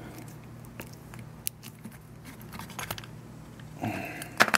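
Small metallic clicks and ticks of a screwdriver tip scraping and prying at the rubber needle seat inside a small-engine carburetor body. About four and a half seconds in comes a sharper, louder clack as the screwdriver is set down on the bench. A low steady hum runs underneath.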